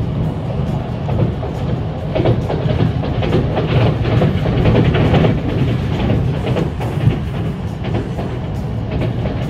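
Passenger train running along the track, heard from inside the carriage: a steady low rumble, with a rapid clatter of the wheels over the rails through the middle seconds. Music plays along with it.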